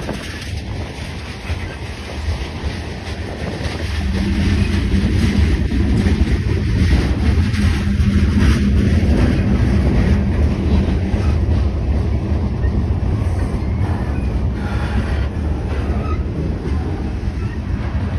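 Freight train's gondola cars rolling by close, steel wheels rumbling and clicking over the rails; it gets louder about four seconds in.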